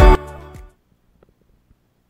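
Background music with a steady beat that stops at the very start and fades out within about half a second, followed by near silence broken by a couple of faint ticks.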